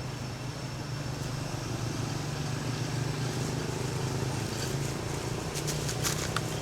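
Steady low rumble of a motor vehicle's engine running nearby, with a few short clicks near the end.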